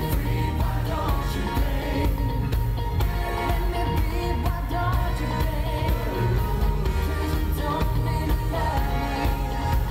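Live pop music: a male vocal harmony group sings in close harmony over a band with a heavy, steady bass, heard through the hall's PA from among the audience.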